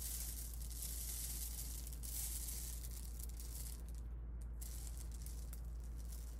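Rice trickling from a measuring scoop into a cardboard paper towel tube lined with twisted aluminium foil, a steady soft hiss. A low hum runs underneath.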